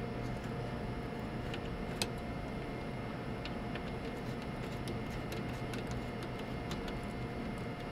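Scattered light clicks and ticks of small hardware being handled, one sharper click about two seconds in, over a steady hum with a faint whine.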